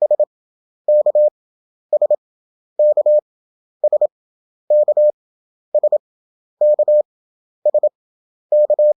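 Morse code practice tone keyed at 27 words per minute with wide gaps between characters (11 wpm effective), a single steady beep. It sends ten characters, about one a second, alternating between two characters: a two-letter country abbreviation repeated five times.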